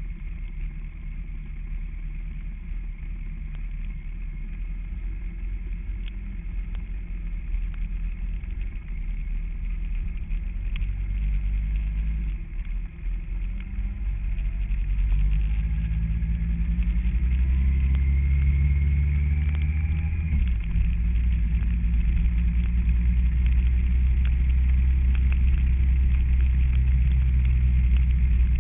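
Kawasaki ZZR1400 inline-four motorcycle engine running with a low rumble; about halfway through it picks up, its pitch rising in a few climbs, then runs on steadily louder.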